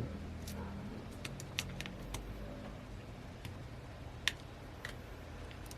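Light, scattered clicks and taps of small phone parts being handled and fitted into a smartphone frame, with one sharper click about four seconds in, over a steady low hum.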